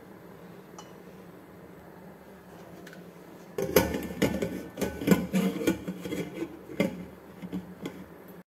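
Steel pressure cooker lid being fitted and locked shut: a run of metal clanks, knocks and scraping that starts about three and a half seconds in, after a low steady hum.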